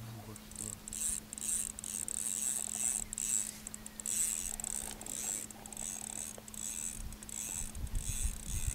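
Fishing reel ratcheting in irregular spurts while a large sturgeon is played on the line.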